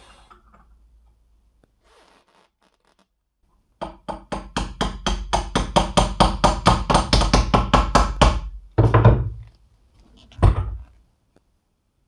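A hammer taps a socket used as a driver, pressing a shielded ball bearing into the end of a drill press's steel quill: a quick even run of about twenty metallic knocks, about five a second, then two heavier thuds as it seats.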